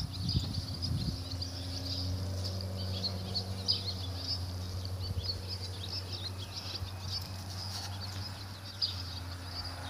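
Small birds chirping irregularly and continuously, over a steady low hum, with a few faint knocks in the first second.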